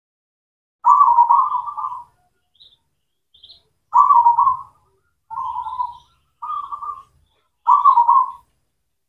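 Zebra dove (local perkutut) cooing: five short, rolling trilled phrases with brief gaps between them, the first the longest.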